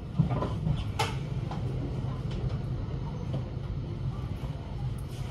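Cabin running noise of a JR Hokkaido 721 series electric train moving along a station platform: a steady low rumble, with a couple of sharp clicks in the first second.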